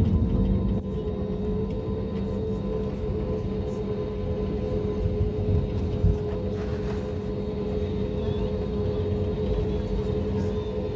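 Cabin noise inside an Airbus A320neo taxiing, with the turbofan engines at low taxi power. It is a steady drone carrying a low hum and a few constant higher tones, dropping slightly in level about a second in.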